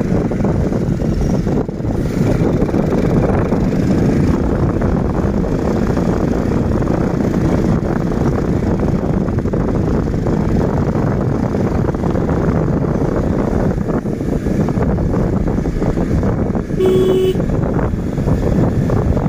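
Motorbike riding along a road: a steady engine and wind rumble on the microphone. Near the end comes one short horn beep.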